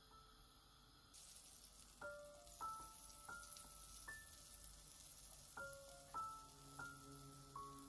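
Butter sizzling faintly in a frying pan, starting abruptly about a second in and continuing as a steady hiss.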